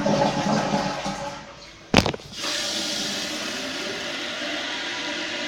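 2015 Glacier Bay toilet flushing: water rushes out and dies away, a sharp knock comes about two seconds in, and then the tank refills with a steady hiss.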